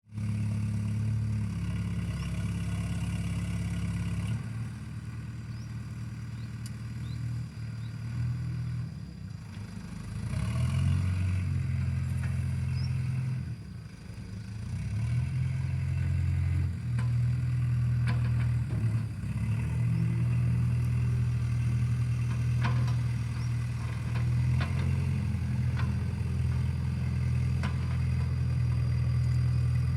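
Loader's diesel engine running, its low hum shifting up and down in pitch and level every few seconds, with a few sharp knocks in the second half.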